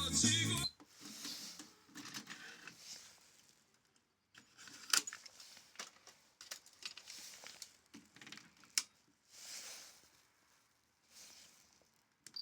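Music from the car stereo cuts off abruptly under a second in. Faint scattered mechanical clicks and rustling follow, with a few sharper clicks, as the unit's controls or cassette mechanism are handled.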